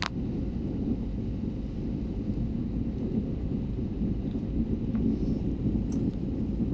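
Airliner landing, heard as a steady low rumble.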